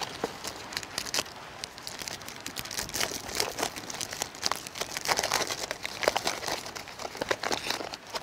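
KitKat wrappers being torn open and crinkled by hand: an irregular run of crackles and rustles.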